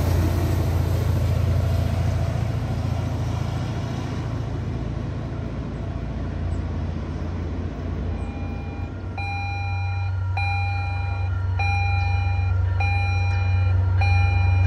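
Diesel locomotive of a commuter train running away, its low engine rumble fading over about eight seconds. About nine seconds in, a steady low diesel drone starts under a bell that rings about once every 1.2 seconds as a train approaches.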